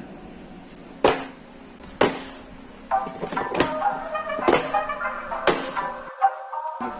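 Background music: a trap-style beat with sharp hits about once a second, joined by a melody about three seconds in, with a brief drop in the sound near the end.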